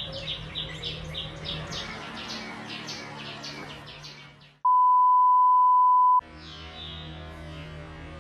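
A small bird's rapid repeated chirping, about three chirps a second, fading out over about four seconds. Then a loud, steady, pure electronic beep for about a second and a half that cuts off suddenly, followed by a quieter low background hum.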